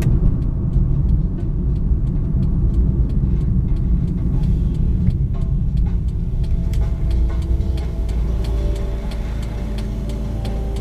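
Car interior: a steady low rumble of the engine and road noise. It eases off a little near the end as the car slows to a stop in traffic.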